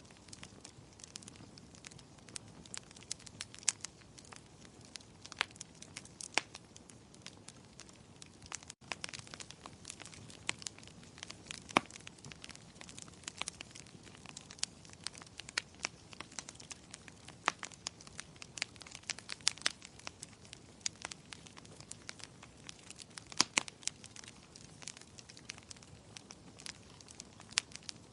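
Wood fire crackling, with frequent irregular sharp pops and snaps, some louder than others, over a faint steady hiss.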